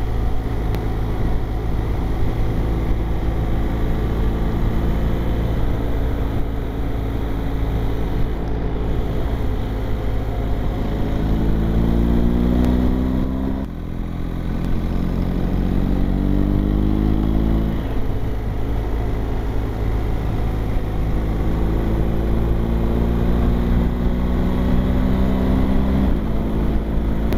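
BMW R 1250 GS Adventure's boxer twin engine running under way, its note climbing several times as the bike accelerates, over a heavy rumble of wind on the bike-mounted camera's microphone.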